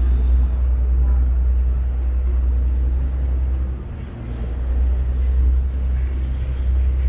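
Steady low rumble of a Venetian vaporetto water bus under way: its diesel engine running and the water along the hull, easing off briefly about four seconds in.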